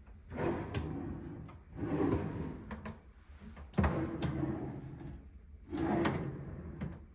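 Cabinet drawers sliding open and shut, four strokes about two seconds apart, the third beginning with a sharp knock.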